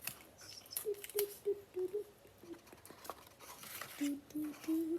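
A girl humming a short tune in low, stepping notes, with faint clicks and rustles of paper and craft supplies being handled.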